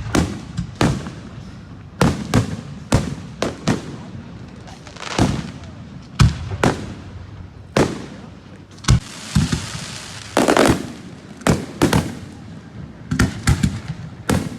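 Fireworks going off in quick succession: a dozen or more sharp bangs, each trailing off, with a high crackling burst about two-thirds of the way through.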